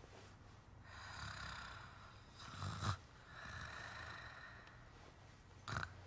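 Slow, heavy breathing: long breathy rushes a second or two each, with pauses between, and a short, sharp, louder sound about three seconds in and again near the end.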